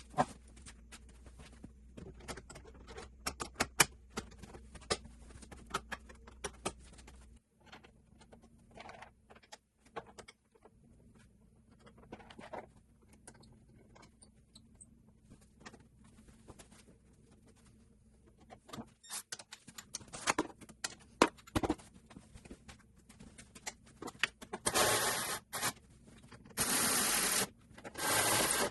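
Hands-on wiring work: scattered clicks, taps and light rattles of cables, connectors and small hardware being handled. A low hum stops suddenly about a third of the way in, and near the end come two louder rasping noises of about a second each.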